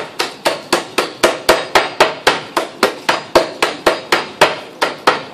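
A cleaver beating raw scallops on a wooden chopping board, pounding them into a paste. The strikes come in a steady run of about four sharp knocks a second.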